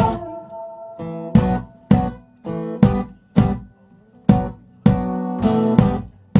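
Acoustic guitar strumming chords in a stop-start rhythm, each chord struck sharply and left to ring briefly before the next, as a held sung note fades out at the start.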